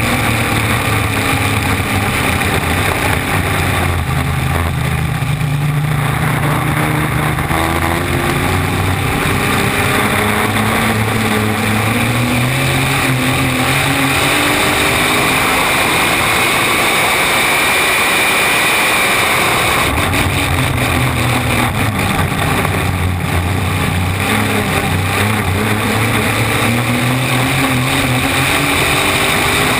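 Flat-bottom V-drive race boat's inboard engine running hard at speed, heard from the stern over rushing water and wind. Its note sags and fades through the middle, then climbs again about two-thirds of the way through.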